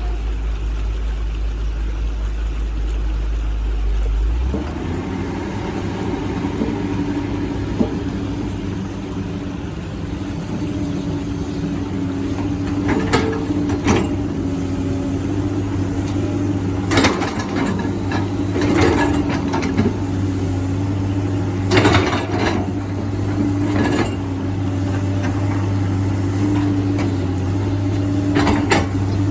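Hydraulic excavator (backhoe) engine running steadily, its note rising about four seconds in and holding there with a steady whine. Several sharp knocks and clanks come in the second half, while it digs and loads.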